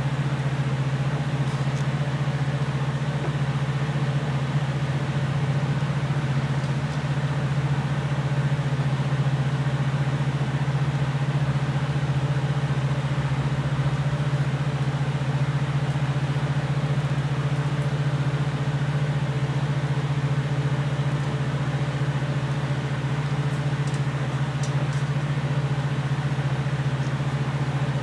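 Steady low hum of a running electric motor in a workshop, unchanging throughout, with a few faint light ticks near the end.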